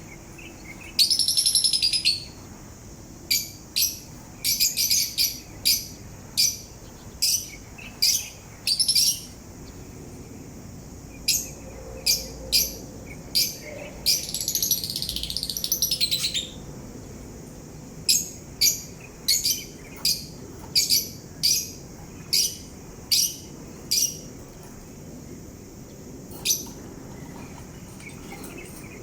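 Pet parrot chirping: short, high chirps about once a second, with a longer warbled phrase near the start and another about halfway through.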